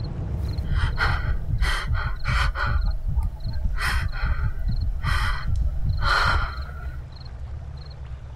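Loud, ragged gasping breaths, about seven of them in the first six seconds, over a steady low rumbling drone. The sound eases off near the end.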